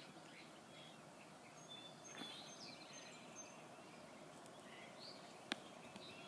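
Faint outdoor background hiss with scattered small bird chirps and short whistled calls. A single sharp click comes about five and a half seconds in.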